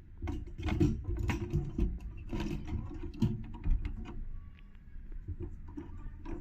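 Irregular clicks, taps and rustling of a fuel pump assembly and its tank opening being brushed off, wiped and handled by hand.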